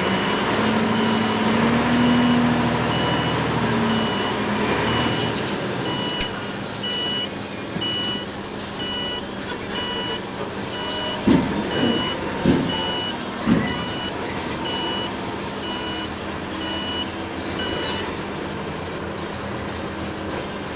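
Komatsu rigid dump truck's diesel engine running, loudest in the first few seconds, with a high reversing alarm beeping evenly, a little faster than once a second, until near the end. Three short, loud, low sounds come close together about halfway through.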